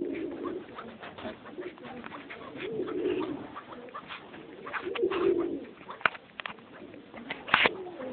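Partridges in a pen giving soft, low warbling calls that come in swells, over faint scratching and clicks; a sharper click near the end.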